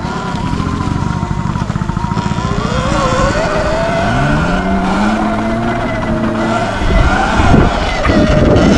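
Sur Ron X electric dirt bike's motor whining under a steady low rumble, the whine climbing in pitch as the bike speeds up about halfway through.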